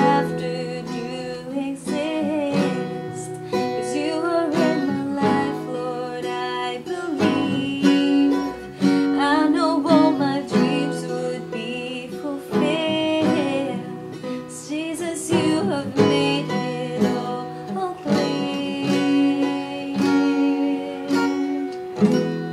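Acoustic guitar strumming chords, with a voice singing a melody over it.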